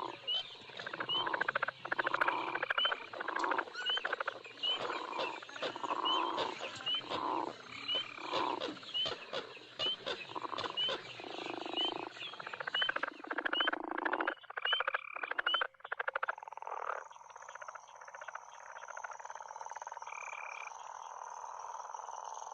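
Cove night ambience sound effect from the Pirates of the Caribbean attraction: frogs croaking one after another, with short repeated chirps and a high insect trill. The croaking thins out about three-quarters of the way through, leaving mainly the steady trill.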